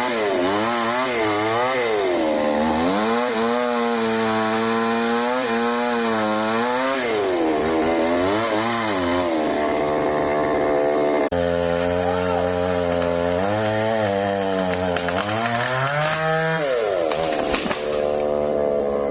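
Chainsaw engine revving up and down over and over, its pitch rising and falling, with a sudden break about eleven seconds in.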